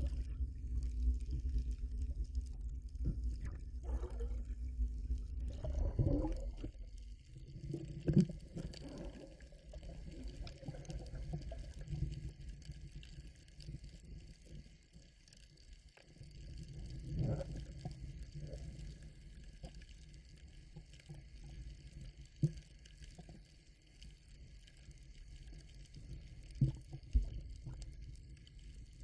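Muffled underwater sound through a camera's waterproof housing: a low rumble of moving water, louder for the first six seconds or so, with scattered soft clicks and knocks.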